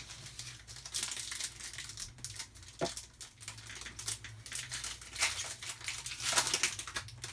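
Crinkling of a Panini Fortnite Series 2 trading-card pack's foil wrapper as it is handled and opened, in an irregular run of crackles with a few sharper crackles.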